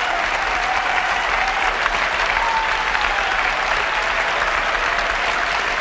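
Large auditorium audience applauding steadily, with some cheering mixed in.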